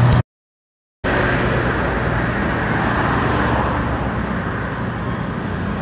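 Steady road traffic noise from passing cars and other motor vehicles. The sound cuts out completely for under a second just after the start, then the traffic noise resumes.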